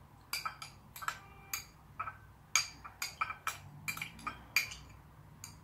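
Kitchen utensil clinking against a storage container as chopped onion is put into it: a run of irregular sharp clinks with a brief ring, about three a second.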